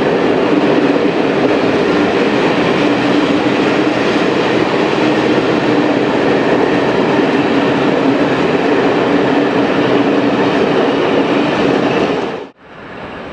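Special passenger train of MÁV Bhv coaches rolling past at departure, wheels running steadily over the rails. The loud, dense rumble cuts off suddenly near the end.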